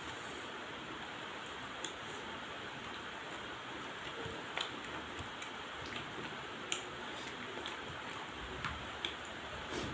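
Cooked crab being picked apart by hand and eaten: a handful of short, sharp clicks and cracks of shell, spaced a second or two apart, over a steady background hiss.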